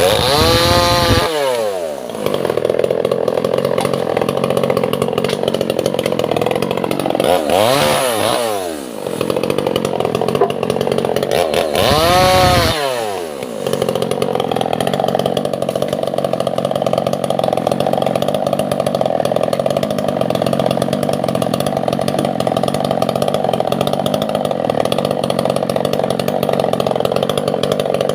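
Two-stroke chainsaw cutting albasia (sengon) wood. The engine revs up and falls back three times in the first half, then holds a steady high speed, dropping off near the end.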